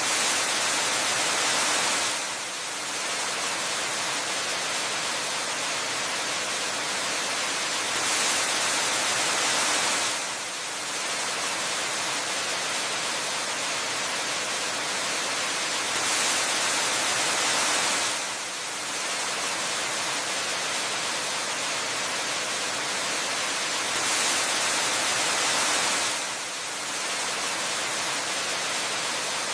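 Steady hissing rush of water from a waterfall, with little low rumble beneath it. It is a loop that repeats about every eight seconds: each pass opens with a brighter, slightly louder two-second stretch, followed by a brief dip.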